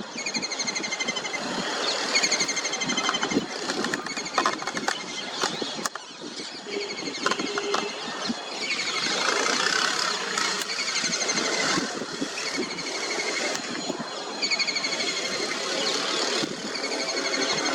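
A kingfisher calling in repeated fast, rattling series of high notes, several times over, with a lull in the middle. A steady background rumble and hiss runs underneath.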